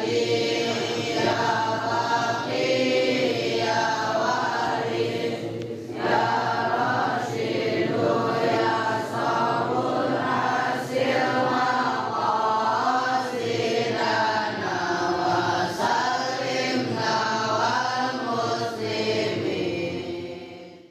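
A congregation of boys chanting together in unison, a sung devotional chant in long phrases with a brief pause about six seconds in. It fades out near the end.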